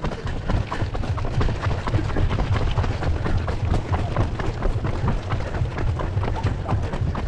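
Footsteps of a crowd of marathon runners on the road, many quick overlapping footfalls, over a steady low rumble.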